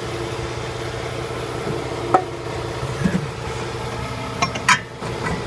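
A few sharp metallic clinks and knocks as tools and brake parts are handled, the loudest near the end, over a steady mechanical hum.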